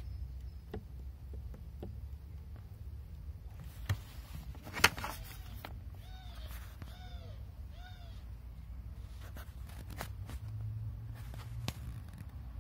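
Clutch pedal assembly under the dashboard: a sharp click about five seconds in, then three short squeaks, each rising and falling in pitch, as the pedal is worked, over a steady low hum.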